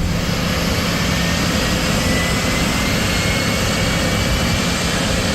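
Boeing 737-800's number 2 engine, a CFM56-7B, beginning its start, heard from the cockpit. A loud hiss of air comes in suddenly, and a faint whine climbs slowly in pitch as the engine begins to spool up.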